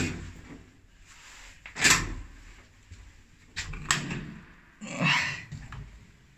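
Doors of an old pre-war lift being opened: a clack as the car's inner double doors are unlatched, a louder bang about two seconds in as they swing open, then the metal landing door's latch clicks twice near the middle and the door is pushed open with a short swish.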